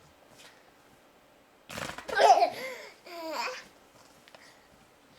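A baby laughing in two high-pitched bursts, the first about two seconds in and a shorter stepped one right after.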